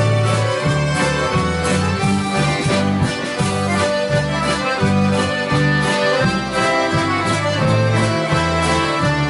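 Many accordions playing a tune together, with acoustic guitars strumming and a bass line stepping evenly about twice a second.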